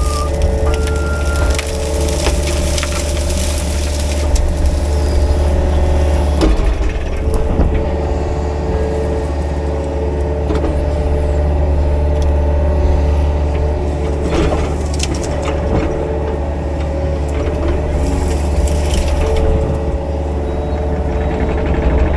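Mini excavator's diesel engine running steadily while its rake attachment tears through brush and small trees, with wood cracking and snapping now and then.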